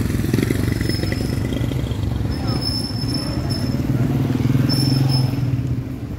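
Busy street traffic: small engines of motorcycles and auto-rickshaws running close by, a steady low drone that swells about four to five seconds in. Two short, thin, high whistling tones sound over it.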